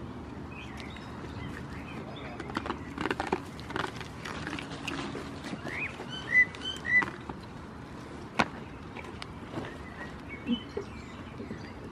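A small bird chirps a few short times about six to seven seconds in, the loudest sounds here, over scattered clicks and knocks from goats moving and nibbling close by, with one sharper knock a little later.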